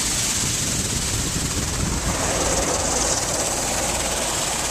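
Automatic car wash jets spraying water and soap over the car, a steady hissing rush heard from inside the cabin, growing fuller about two seconds in.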